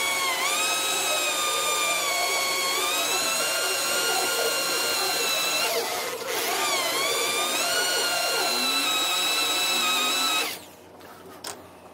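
Electric hand drill running steadily as its bit bores lengthwise into a threaded iron rod, fed slowly with light pressure and oil. The motor's whine dips in pitch briefly under load, slows and picks up again about halfway through, and stops near the end.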